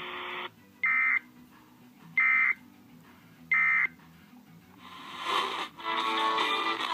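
Three short bursts of Emergency Alert System digital data tones, the screeching end-of-message code, about a second and a half apart. Music comes in about five seconds in.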